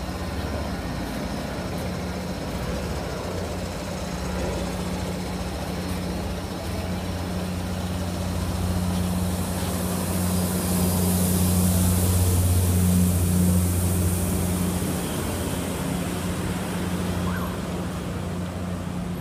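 Hybrid electric road train moving slowly past: a steady low drone from its drive, with a hiss that swells and is loudest about halfway through, then eases off as it pulls away.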